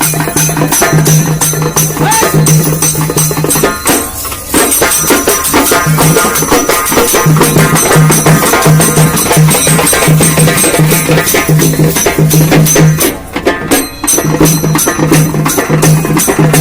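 Halgi frame drums beaten with sticks in a fast, loud rhythm of sharp strokes, breaking off briefly twice. A low tone sounds in short on-off blocks beneath the drumming.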